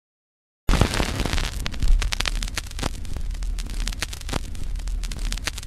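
Vinyl record surface noise from a turntable: hiss with irregular crackles and pops over a low hum. It cuts in suddenly just under a second in.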